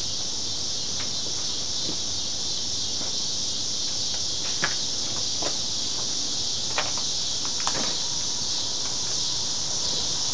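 Steady, high-pitched chorus of insects, with a few faint clicks in the second half.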